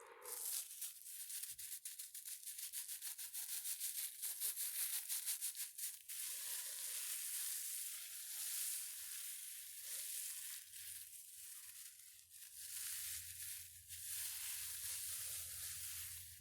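Fast scratching strokes on a textured ASMR trigger object, several a second, for about the first six seconds, then a steadier rubbing hiss for the rest.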